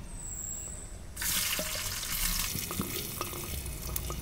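Chopped onions dropped into hot oil in a clay handi: the oil breaks into a sizzle about a second in and keeps sizzling, with scattered crackles.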